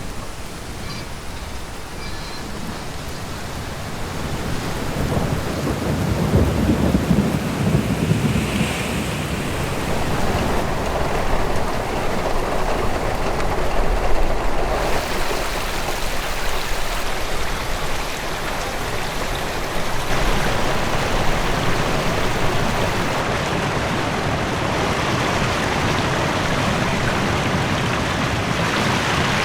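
Steady rain with low rolling rumbles of thunder, swelling around the middle.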